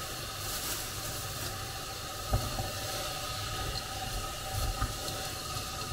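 Shredded cabbage sautéing in a hot pot, a steady sizzle and hiss, as it is stirred with a silicone spatula; soft knocks of the spatula in the pot about two seconds in and again near the end.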